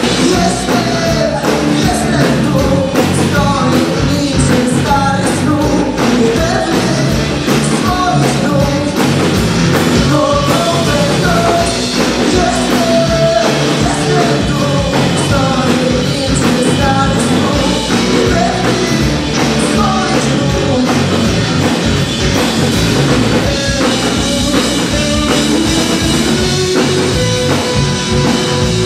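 Live alternative rock band playing: a man singing over electric guitar, bass guitar and drum kit.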